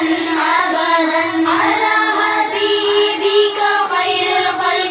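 Devotional naat intro: singing voices gliding over a steady held drone.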